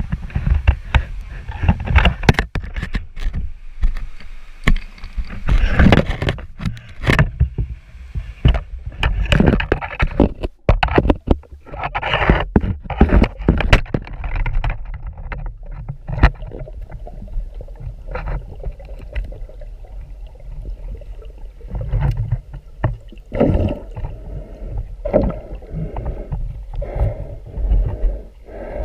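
Water sloshing and gurgling around the camera, with frequent sharp knocks and scrapes from handling, as a spearfisher swims in the river.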